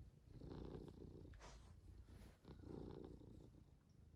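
Faint, low rhythmic purring or breathing, swelling about every two seconds.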